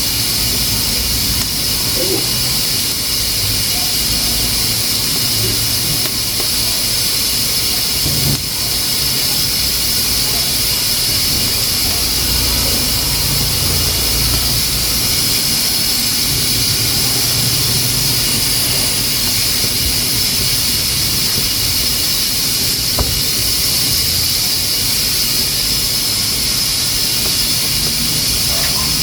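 Pressure cooker hissing steadily as steam escapes from its valve while it cooks beans. A single sharp click about eight seconds in.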